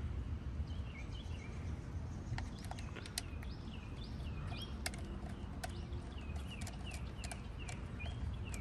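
A bird chirping repeatedly, short falling notes a few times a second, over a steady low rumble of background noise, with scattered sharp clicks.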